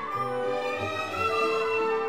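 Background orchestral music led by strings, with a long held note starting a little past halfway.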